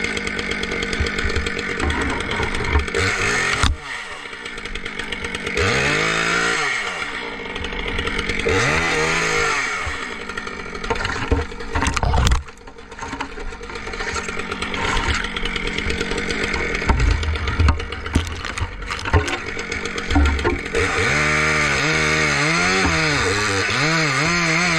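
Two-stroke chainsaw running and cutting, its engine revving up and falling back again and again. Near the end it settles into a steadier high-rev cut.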